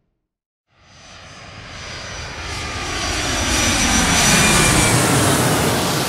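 Airplane flying over: after a brief silence its engine noise, a rush with a high whine in it, comes in and builds steadily, loudest about four to five seconds in, then starts to fade as it passes.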